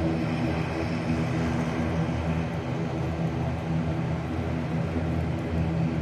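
Twin-engine turboprop airliner taxiing, its engines and propellers running with a steady drone of several held tones.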